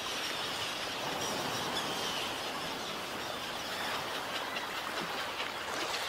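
Many birds calling at once, a dense chatter of short high calls over a steady hiss of wetland ambience.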